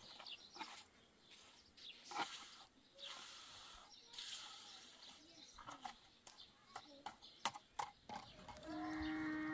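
Scattered light knocks and clicks, then a single held animal call, one steady pitch for about a second, near the end.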